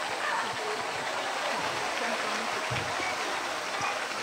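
Water sloshing and splashing as a swimming polar bear pushes along the pool wall, a steady rushing noise, with faint voices of onlookers behind it.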